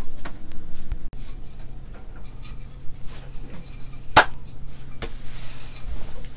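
Handling noise from a phone camera being adjusted by hand: scattered clicks and a sharp knock about four seconds in, over a steady low hum.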